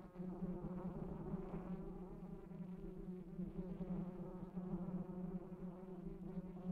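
A swarm of wasps buzzing: one steady, low drone that does not let up.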